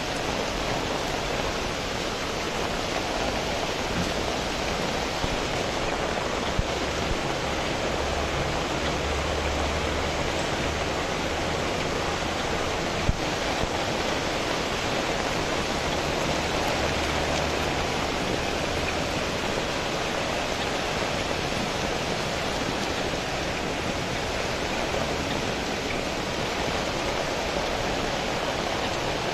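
Steady rain falling on a wet street, a constant even hiss. A low rumble comes and goes partway through.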